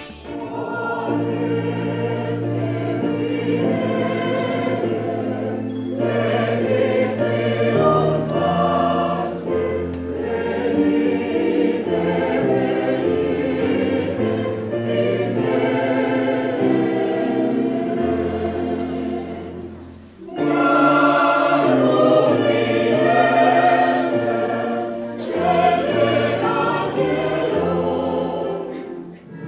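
A choir singing in sustained, overlapping parts over low held bass notes, with a brief drop in level about twenty seconds in.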